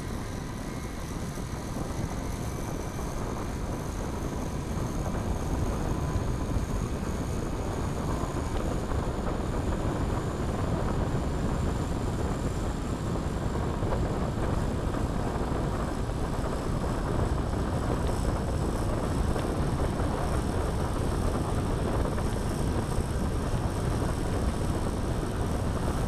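Model airplane engine running with its two-blade propeller spinning, a steady propeller buzz with a faint high whine; it grows gradually louder over the first several seconds and then holds steady.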